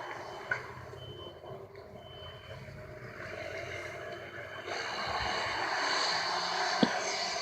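Two short, faint, high electronic beeps about a second apart, over steady traffic noise that swells noticeably about two thirds of the way through.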